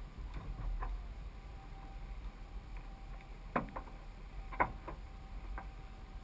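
Low rumble of a vehicle driving on a wet road, picked up by a GoPro mounted on its roof, with three sharp taps about a second apart in the second half.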